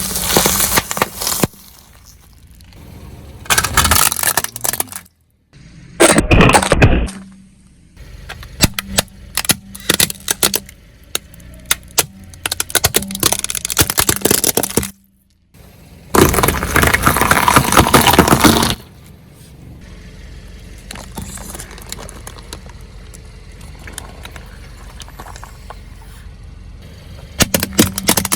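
A car's tyres rolling over and crushing objects in a series of separate runs: loud crunching, cracking and breaking, with many sharp snaps between the louder spells. A quieter steady stretch comes late, and a fresh run of cracks starts near the end.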